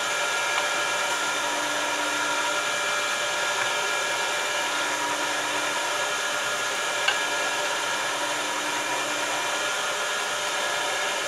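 Electric meat grinder fitted with a sausage-stuffing tube, its motor running steadily as sausage meat is fed through into the casing. A single brief click about seven seconds in.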